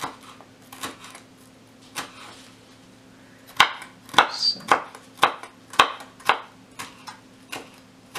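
Chef's knife chopping jalapeño peppers on a wooden cutting board: a few scattered knocks, then from about three and a half seconds in a steady run of chops, about two a second.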